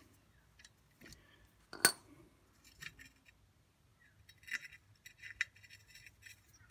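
Small metallic clicks and clinks of a steel bolt and hand tools on a rusty brake drum: one sharp metal clink about two seconds in, then a run of light ticks and scrapes as the bolt is turned by hand in the drum's threaded hole to push the drum off the hub.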